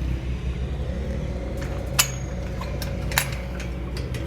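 A steady low motor hum, with two sharp clicks about two and three seconds in, the first leaving a brief high ring.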